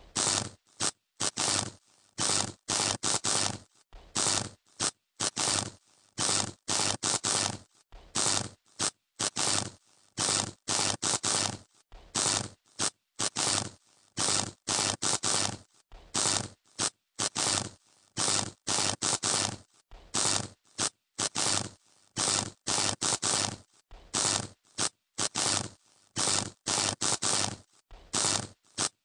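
Electrical short circuit arcing: sharp bursts of crackling, several a second in uneven clusters with brief silent gaps, the pattern repeating over and over.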